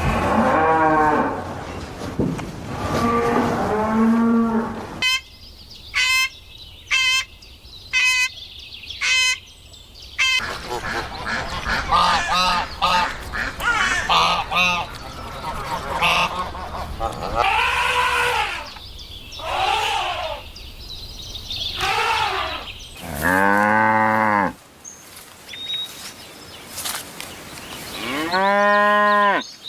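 A string of farm animal calls, led by cattle mooing in drawn-out, rising-then-falling calls, with a run of five short sharp calls about once a second early on and a cluster of quicker calls in the middle.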